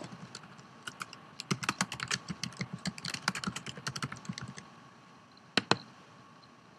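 Typing on a computer keyboard: a quick run of keystrokes lasting about three and a half seconds, entering a search term. About a second after the typing stops come two sharp clicks close together.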